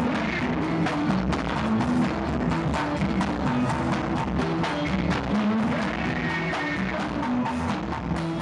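Pagode band music: steady, busy drums and percussion over a bass line, with guitar.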